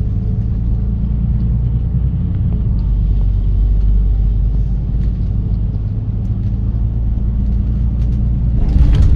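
Steady low rumble of a bus's engine and tyres heard from inside the passenger cabin while it drives along, with a brief louder surge of noise near the end.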